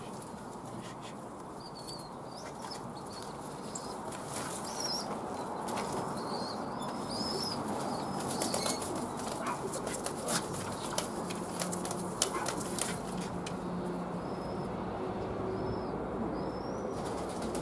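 Young pigeons flapping and fluttering their wings in short bursts of sharp clicks as they are caught and held, with thin high chirps scattered through, over a steady background hiss.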